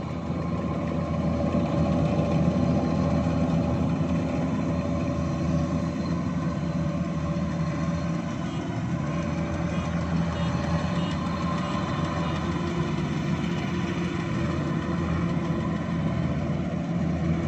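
Kubota combine harvester's diesel engine running steadily under load while cutting rice, a continuous hum that holds level, a little louder from about a second in.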